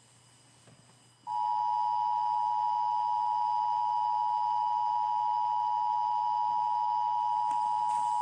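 Emergency Alert System attention signal: two close pitches sounded together as one steady, unbroken tone. It starts about a second in and announces that an emergency alert message is about to be read.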